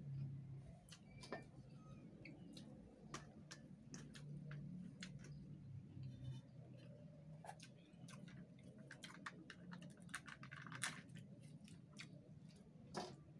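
Faint chewing by a person eating rice and salted fish by hand, with irregular small clicks and smacks over a low steady hum.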